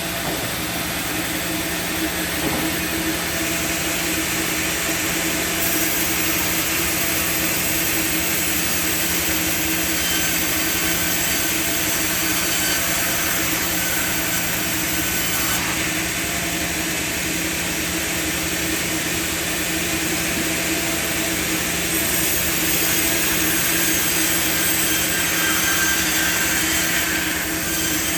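Sawmill machinery running steadily: a continuous mechanical hum under a broad hiss, with no clear knocks.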